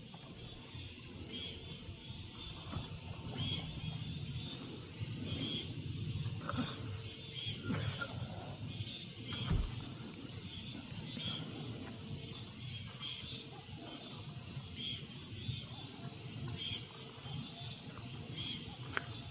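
Outdoor ambience: a high chirp repeating about once a second over a steady low rumble, with a dull knock about ten seconds in.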